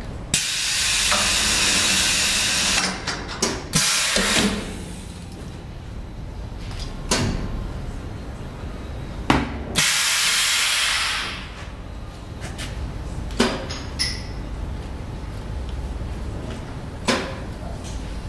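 Pneumatic spoon-forming press cycling: two long bursts of compressed-air hiss from its cylinders and valves, about ten seconds apart, with sharp clunks and clicks from the press and valves in between.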